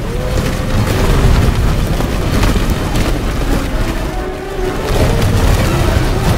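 Film action soundtrack: orchestral music mixed with deep booming rumbles and rushing noise.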